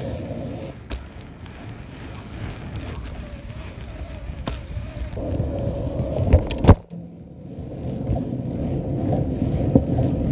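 Small scooter wheels rolling over rough asphalt, a steady low rumble and rattle. Several sharp knocks from the scooter break through it, the two loudest a little past the middle, as tricks are tried.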